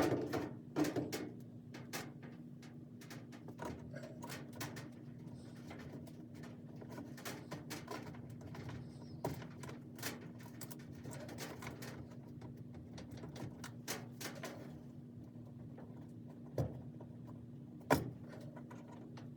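Scattered small clicks and taps of a multimeter's test probes and leads being handled against a dryer start switch's terminals, with a few sharper knocks right at the start and twice near the end, over a steady low hum.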